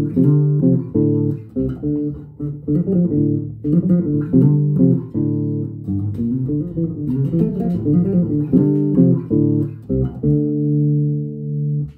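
Ken Smith electric bass played fingerstyle and unaccompanied: a fast run of single notes, ending on one note held for about two seconds.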